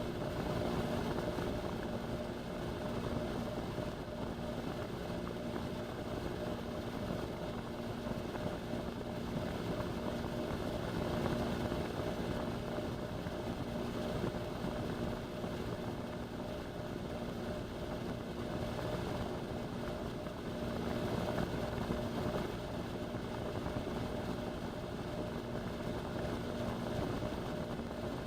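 Indesit washing machine on a steady spin: an even rumble from the drum with a constant motor hum, picked up through the door glass where the camera is fixed.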